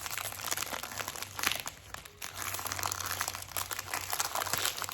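Toy packaging being unwrapped by hand: irregular crinkling and rustling of wrapper material, with a few sharper crackles.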